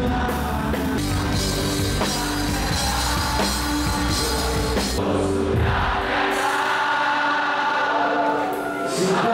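Live rock band playing, drums, bass and guitars under singing; about six seconds in the drums and bass drop out, leaving the voices singing on their own.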